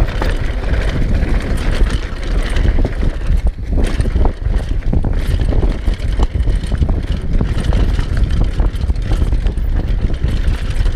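Wind buffeting the microphone of a camera on a downhill mountain bike at speed, with the steady rattle of the bike and the tyres over a dry dirt trail and many small knocks from bumps and gravel.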